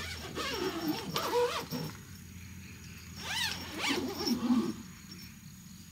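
Fabric mesh insect screen being pulled down and fastened across an open car tailgate, with rustling and handling noise. An animal call that rises and then falls in pitch sounds twice, near the start and about three seconds in.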